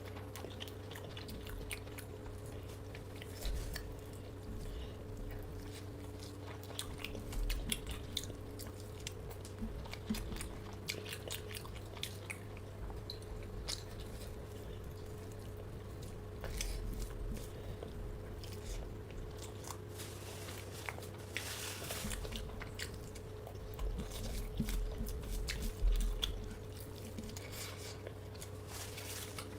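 A person chewing and biting fried food in close-up, with scattered crunches and small mouth clicks. A steady low hum runs underneath.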